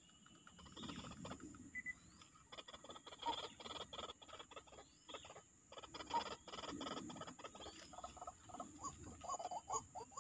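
White-breasted waterhen calls: fast runs of harsh, clicking repeated notes that start and stop in bouts, quickening toward the end. Short chirps from other small birds and a steady high insect hiss sound under them.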